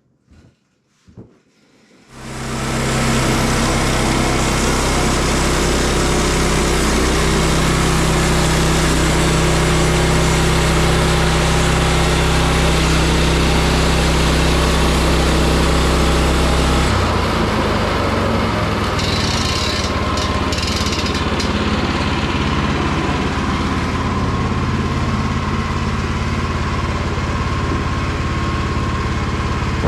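Gas engine of a Woodland Mills HM122 portable bandsaw sawmill starting up about two seconds in and then running steadily at speed. Just past the middle its note shifts lower and the hiss thins, and it runs on at that note.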